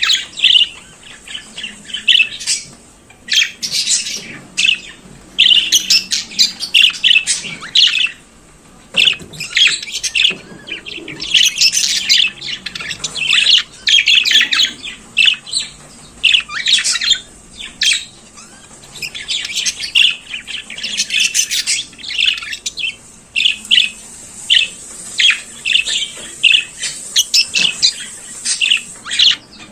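Budgerigar warbling: a fast, continuous chatter of chirps, squawks and short whistled notes, broken only by brief pauses.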